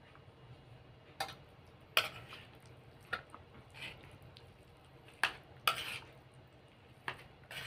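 A metal spoon clinking and scraping against a plate while food is scooped up, about eight sharp, irregularly spaced clinks.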